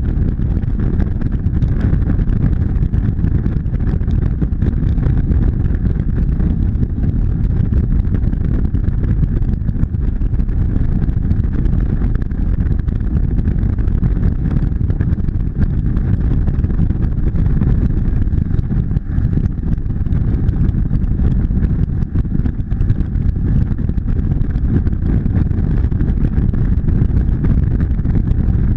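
Motorcycle riding at highway speed, heard through a bike-mounted action camera: a steady, deep rumble of wind on the microphone and engine noise, unbroken throughout.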